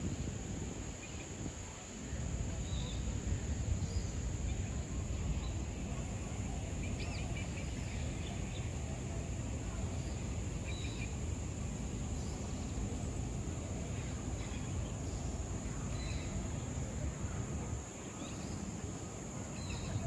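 Tropical outdoor ambience: a steady high insect drone with short, scattered bird chirps over a continuous low rumble.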